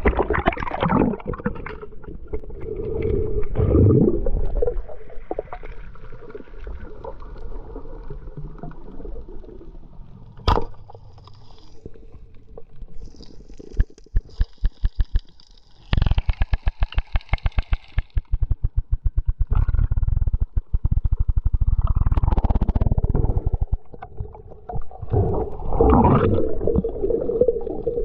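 Sea water sloshing and gurgling around a diver's action camera as it goes under the surface, then muffled underwater noise. There is a single sharp click about ten seconds in, and a long run of rapid, evenly spaced clicks through the middle.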